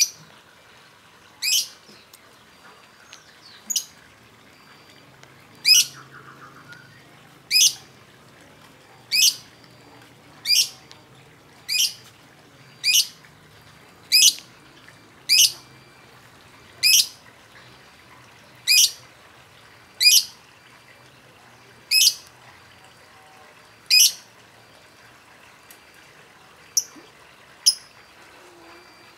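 Lovebird giving short, shrill single calls, one every second and a half to two seconds, with two briefer calls near the end.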